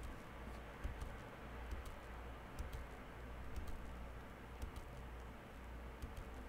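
Faint, irregular clicks from a computer keyboard or mouse, roughly once a second, over a low steady hum.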